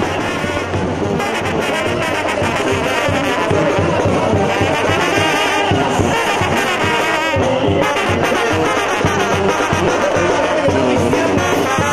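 Mexican banda brass band playing live: trumpets carrying the melody over sousaphone, with a tambora bass drum, snare and cymbal keeping a steady beat.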